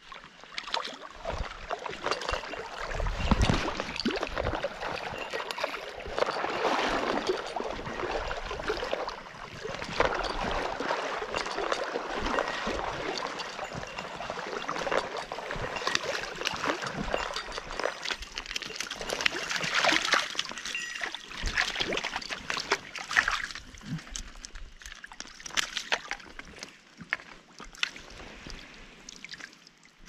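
Water splashing and sloshing with many small splashes, as a hooked rainbow trout thrashes in shallow water and is brought into a landing net.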